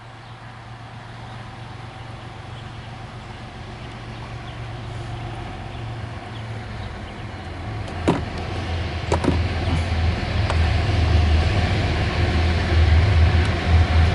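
Diesel locomotives of an approaching CSX coal train, a low rumble growing steadily louder, with a few sharp clicks from about eight to ten seconds in.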